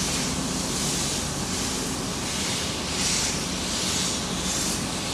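NSW R class steam locomotive R766 moving slowly as a light engine, its exhaust coming as regular hissing chuffs about once a second. Steam hisses steadily from the open cylinder drain cocks.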